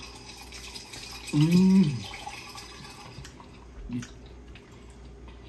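A person hums a short, approving "mmm" about a second and a half in, its pitch rising then falling. A few faint small clicks and a steady low hiss run under it.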